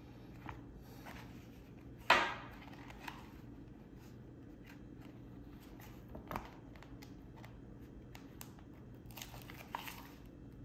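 Sticker sheets rustling and crinkling as they are handled, with one sharp, loud crackle about two seconds in. Then small clicks and a brief rustle as a sticker is peeled from its backing and pressed onto a phone case.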